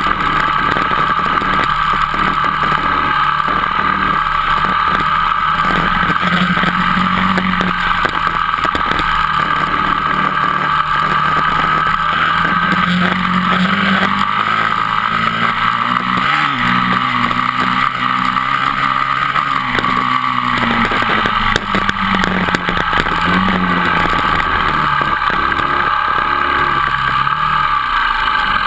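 Dirt bike engine running on a gravel road, its note rising and falling with the throttle, over a steady rush of wind and road noise.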